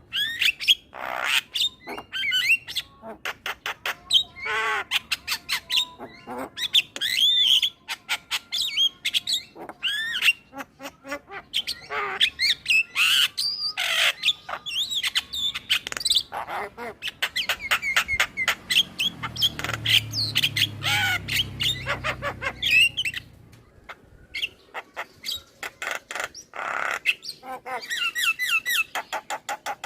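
Male Javan myna's chattering song: a fast, varied run of harsh squawks, rattling clicks and whistled notes, with a short lull about three-quarters through.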